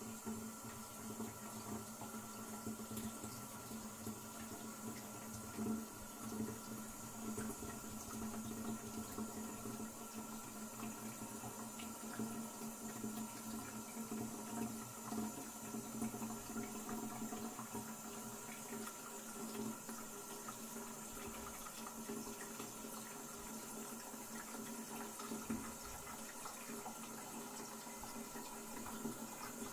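Toilet cistern refilling, water running in steadily while the fill valve hisses with a few constant whistling tones.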